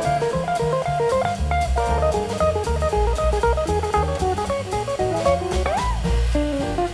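Instrumental background music: a guitar melody over bass and drum kit, with a rising bent note near the end.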